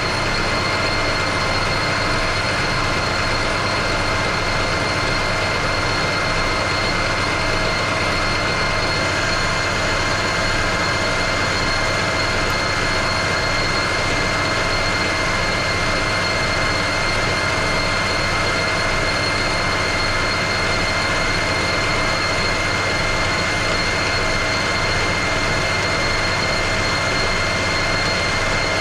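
Metal lathe running steadily at speed with a four-jaw chuck spinning, the spindle and gearing giving a steady drone with a high whine over it.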